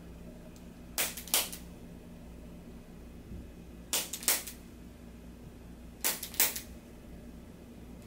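Chiropractic Activator adjusting instrument firing against the jaw joint, sharp spring-loaded clicks in three pairs, the second click of each pair coming a fraction of a second after the first.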